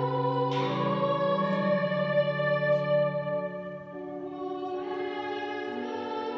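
Background music of long held, reverberant notes, changing to a new chord about four seconds in.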